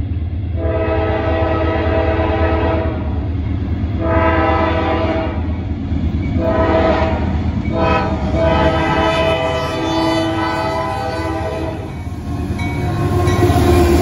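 GE diesel locomotive's air horn sounding a chord in four blasts, the last held longest, the warning pattern for a grade crossing. The engine rumbles underneath throughout and grows louder near the end as the locomotive passes.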